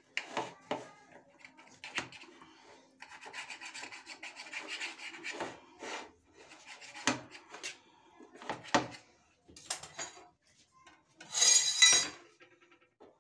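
Kitchen knife cutting a semolina pancake on a ceramic plate: the blade taps and saws, with a stretch of steady scraping across the plate. Near the end a short, loud scrape with a ring as the ceramic plate is set on the metal stove grate.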